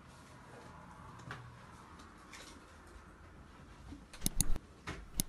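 Faint room tone with light ticking. About four seconds in come a few sharp, loud mouse-click sound effects from an animated subscribe button, with one more click just before the end.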